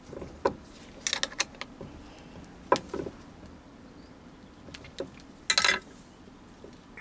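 Sharp metallic clicks and short rattles of a T-handle hex key being seated in and turned in stainless steel Allen bolts, tightening a small 4-jaw chuck onto its backplate. A denser metallic rattle comes about five and a half seconds in.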